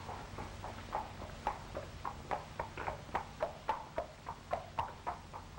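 Horse's hooves clip-clopping at a walk on hard ground, about three to four even beats a second, over a steady low hum of an old film soundtrack.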